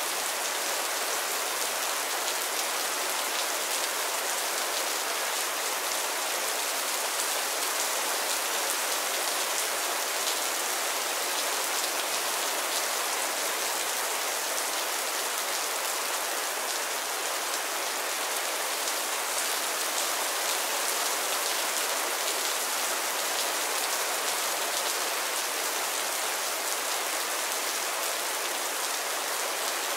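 Steady rain: an even hiss of many falling drops that holds at one level throughout, with no lulls or thunder.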